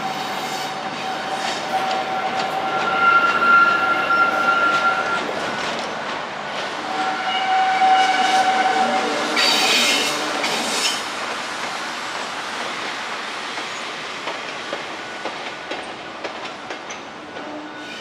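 A JR Freight Class EF210 electric locomotive running light on its own, its wheels clicking over rail joints. Two spells of high-pitched ringing tones come a few seconds apart, then a short high hiss about ten seconds in, after which the sound fades as it moves away.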